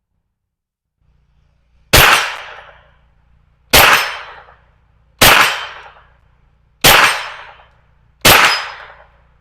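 Smith & Wesson FPC 9mm carbine firing five slow, single shots about a second and a half apart, each followed by a decaying echo.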